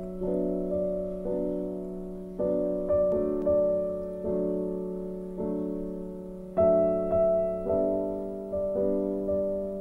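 Background music: a slow piano melody, notes struck about once or twice a second and left to fade.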